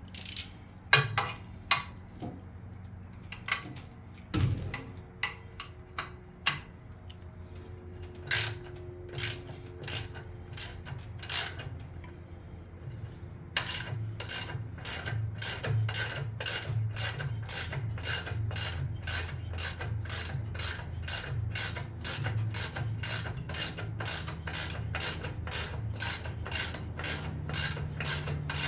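Hand socket ratchet clicking as an intake manifold bolt is worked loose on a Chevy 350 small-block. At first come scattered clicks and knocks, then about halfway through a steady run of clicks at roughly three a second as the bolt is backed out.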